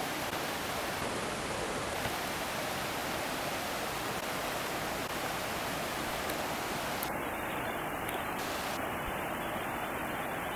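Shallow, fast river rushing over rocks and boulders: a steady, even rush of water.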